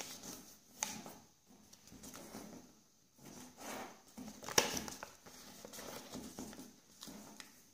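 A sheet of origami paper being folded and creased by hand: uneven rustling and sliding of paper under the fingers, with a few sharp crackles as folds are pressed, the loudest about four and a half seconds in.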